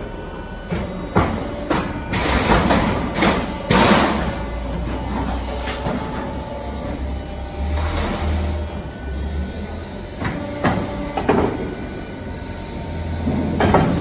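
Steelmaster AML-3 automatic HVAC duct line running a duct program under its own control. The drive hums steadily while the sheet feeds through. Sharp metallic knocks come from the stations, with a bout of rushing, sliding noise a couple of seconds in, and the folding station's beam is working near the end.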